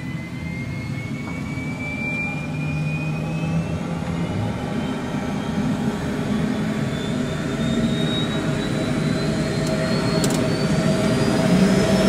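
AS350 helicopter's turboshaft engine spooling up during its start, heard from inside the cockpit: a whine that rises steadily in pitch as the engine grows louder, over a low running hum.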